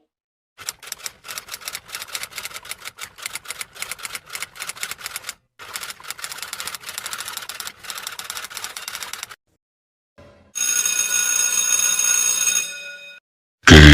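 Rapid typing clicks, like a typewriter, go on for about nine seconds with one brief pause. Then comes about two seconds of steady bright ringing, like a bell, which fades away.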